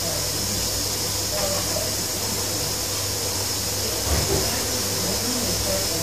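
Old front-loading washing machine running: a steady motor hum with hiss, and a single thump about four seconds in.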